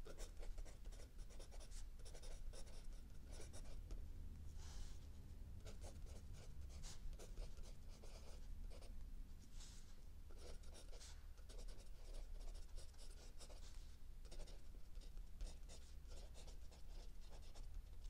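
Mechanical pencil writing on lined notebook paper: quick, scratchy strokes in an irregular run, with a few longer sweeps here and there.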